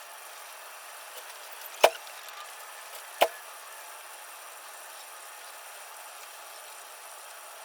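Two sharp knocks about a second and a half apart, over a steady hiss.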